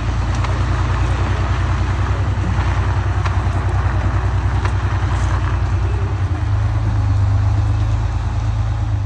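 Concrete mixer truck's diesel engine running as the truck drives away, a steady low rumble that grows stronger about six seconds in.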